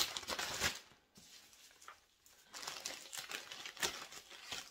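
Gallon-size plastic storage bag crinkling as it is handled and opened and a cling-wrapped dough ball is slid into it, in two stretches: briefly at the start, then again from about halfway to near the end.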